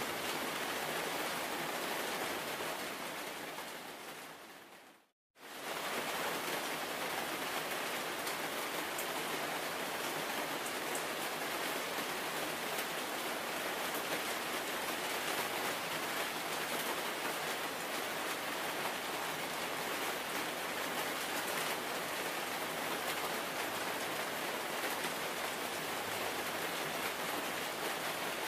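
Steady hiss of heavy rain. It fades away about four seconds in, drops out for a moment, then comes straight back and holds steady.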